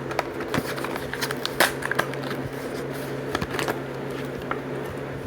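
Hot Wheels blister pack being opened by hand: the plastic blister and cardboard card crackle and tear in a run of irregular sharp clicks and crinkles, over a steady low hum.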